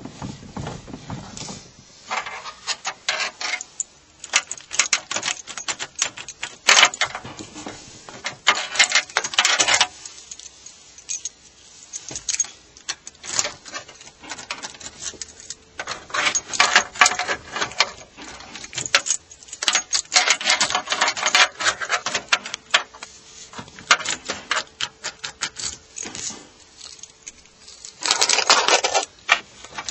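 Lada Kalina's electric power steering unit clicking and knocking in several bursts of rapid clatter as the steering wheel is turned, the sign of a fault in the power steering.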